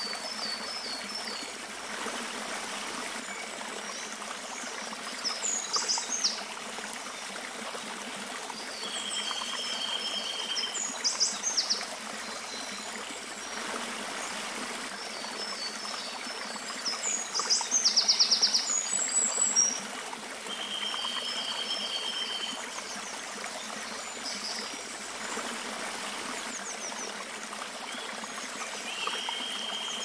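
Small creek water rushing and splashing steadily down a short cascade over mossy rocks. Birds sing over it in a phrase that recurs about every ten seconds: a held high whistle, then quick chirps, with the loudest flurry a little past the middle.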